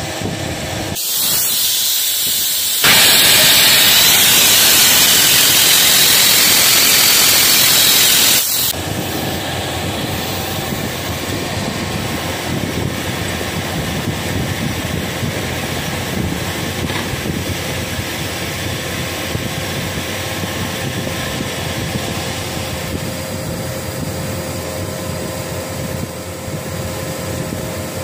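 Spray-welding torch hissing as metal powder is sprayed onto a steel hammer piston. The hiss comes up about a second in, runs much louder for about six seconds, then cuts back sharply to a steady, lower rush.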